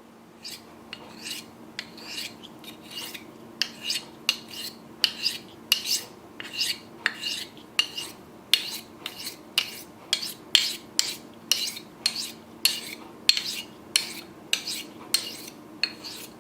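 Knife blade being sharpened: repeated rasping strokes of steel, about two a second, growing louder after the first few seconds.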